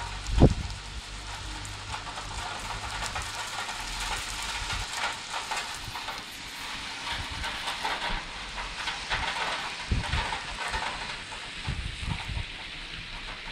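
Steady rain falling on the street and roofs, a continuous even hiss. A few short low thumps break through, about half a second in and again twice near the end.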